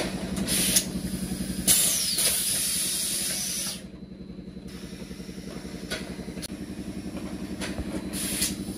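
Plastic-bottle blow-moulding machinery running with a rapid low pulsing, broken by loud bursts of compressed-air hiss: a short one about half a second in, a long one of about two seconds, then shorter hisses near the end.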